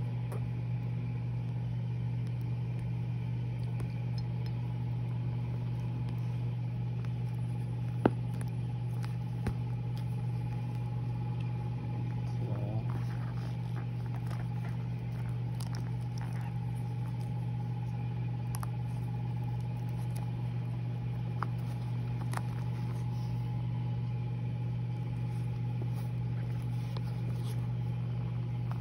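A steady low hum with a faint, steady higher tone over it. There is a single sharp click about eight seconds in, and a few faint ticks and a soft scrape around the middle.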